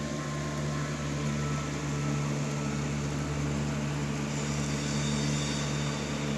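A steady low mechanical hum, as from a running motor, with an even hiss above it.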